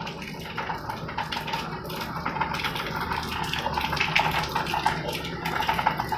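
Light, irregular clicks and taps of hand tools and test probes against a TV's mainboard and metal chassis, over a steady low hum.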